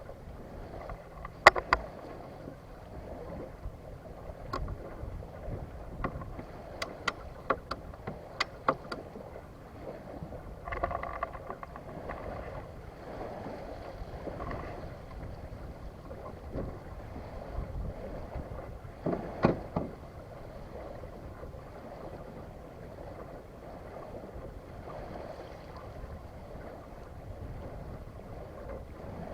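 Small sailboat under way: a steady wash of water and wind noise, broken by scattered sharp clicks and knocks, several in the first ten seconds and a louder double knock about two-thirds of the way through.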